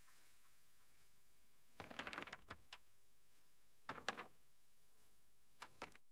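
Near silence with a faint hiss, broken three times by short clusters of faint sharp clicks about two seconds apart.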